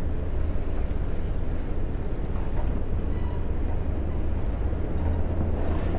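Wind rumbling over the microphone: a steady, low, uneven rumble with nothing else standing out.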